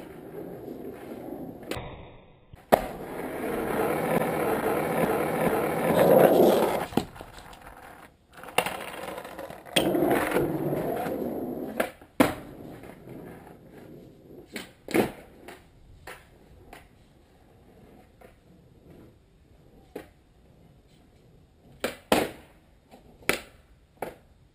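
Skateboard wheels rolling on an asphalt driveway in two runs, each broken by a sharp clack of the board striking the ground, the second about twelve seconds in as the skater jumps a low ledge. After that come scattered short clacks of the board knocking on the pavement.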